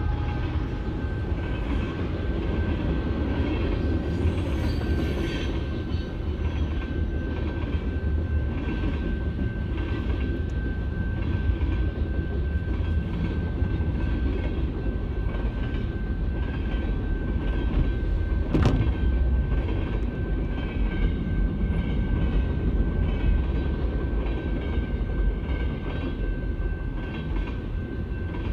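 Freight train cars rolling past, a steady rumble with clickety-clack of the wheels over the rail joints. A steady high tone runs under it, and there is one sharp clank about two-thirds of the way through.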